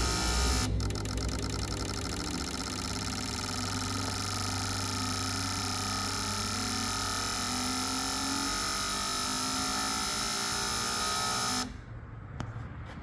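Autool CT400 injector tester running a test cycle, the fuel injectors buzzing as they fire rapidly. The buzzing changes to a faster, finer pattern about a second in, then cuts off suddenly about a second before the end.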